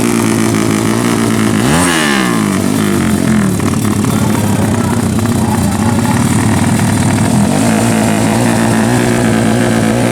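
Four-stroke underbone drag bikes' engines running together, steady and loud. About two seconds in, one engine's pitch sweeps sharply down and back up.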